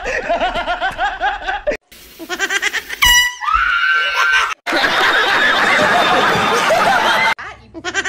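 A man laughing in quick rhythmic bursts, cut off abruptly. Then comes a short pitched sound effect that slides down in pitch, followed by a loud air horn blast of nearly three seconds over a dense wash of noise.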